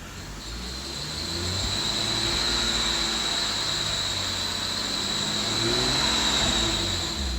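2012 BMW 135i's N55 turbocharged inline-six revved up and held above idle, with a steady high-pitched squeal from the engine bay over the engine note; the revs drop near the end. The squeal comes in when the engine is revved past about 2,000 rpm and its cause is not yet known.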